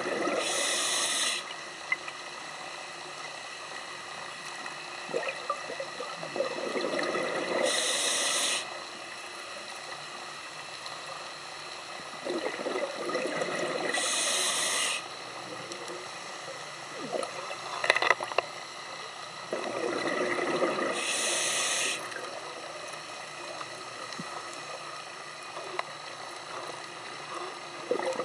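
Scuba diver breathing through a regulator underwater: a hissing, bubbling breath cycle about every six to seven seconds, four times over, with a sharp click about two-thirds of the way through.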